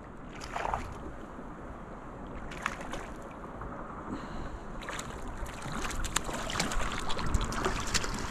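Creek water running, with irregular splashes of a hooked trout thrashing at the surface and being drawn into a landing net, growing busier and louder in the second half.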